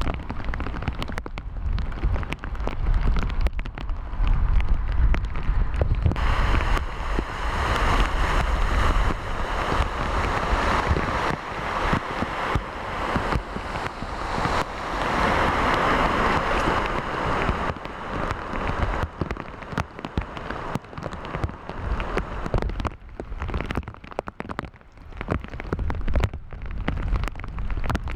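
Steady rain falling, with the patter of many drops and a low rumble of wind on the microphone. A louder rushing hiss swells up about six seconds in and eases off again after about twelve seconds.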